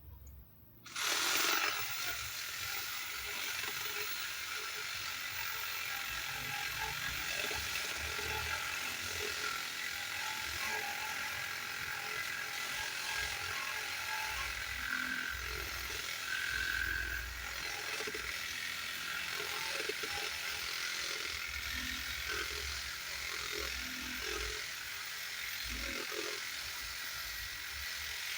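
A power saw starts about a second in and runs steadily, cutting lengthwise through a mahogany timber beam to rip off a strip.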